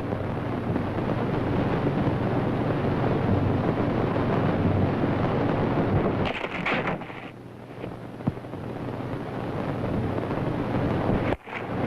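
Steady hiss with a low hum, the background noise of an early-1930s film soundtrack. A brief higher-pitched sound comes about six seconds in, and the noise briefly drops out just before the end.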